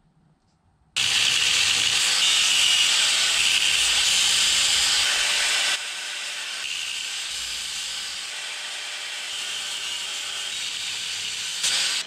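Angle grinder with a cutting disc cutting into a small steel plate, a loud steady grinding hiss. It starts abruptly about a second in, turns quieter near the middle and stops near the end.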